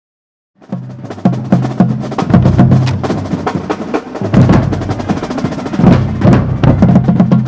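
Marching drumline (snares, tenor drums and tuned bass drums) kicks into a loud, fast cadence about half a second in, with the bass drums sounding a run of low pitched notes under the rapid snare strokes.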